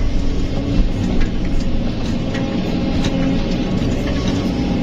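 Kobelco SK200 excavator's diesel engine and hydraulics working steadily under load as the bucket digs into the soil, with a few sharp knocks.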